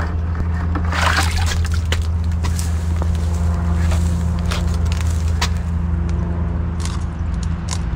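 A vehicle engine idling as a steady low hum, with scattered clicks and scrapes from crabs being handled on wet concrete and a brief slosh of water in a bucket about a second in.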